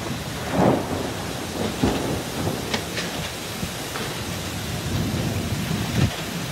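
Thunderstorm downburst: strong wind gusts driving heavy rain, with low rumbling surges of wind buffeting the microphone about half a second in, near two seconds and near the end. A few sharp ticks come around three seconds.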